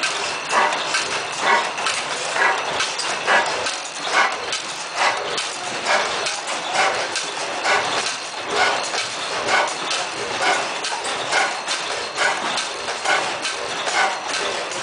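10 HP New Era hit-and-miss stationary gas engine running, with a regular clacking beat about twice a second.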